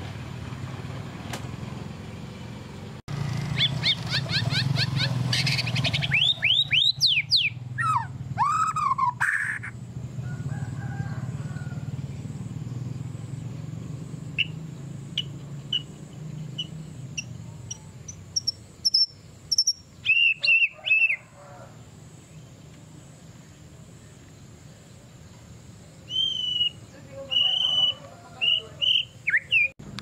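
Small caged songbird singing: a fast run of repeated notes, then several loud downward-sweeping whistled phrases. After that come scattered short chirps, and another short burst of calls near the end.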